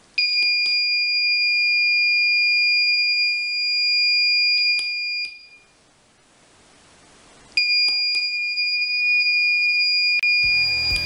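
Small battery-powered buzzer in a simple circuit sounding a steady high-pitched tone twice, first for about five seconds and then, after a short pause, for about three seconds, with clicks as it is switched on and off. Music comes in near the end.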